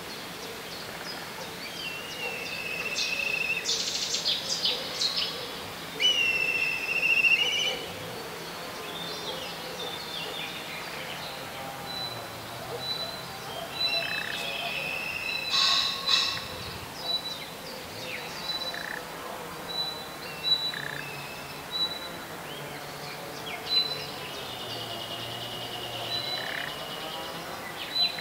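Several wild birds singing and calling: assorted short whistled phrases and trills, the loudest a few seconds in and near the middle, with a thin high note repeated about once a second through the second half.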